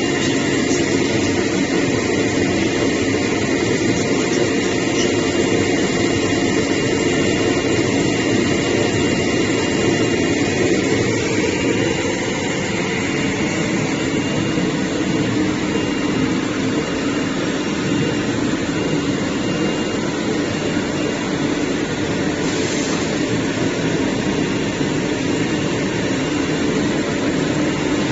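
CNC cutting machine running steadily, a continuous mechanical hum and hiss.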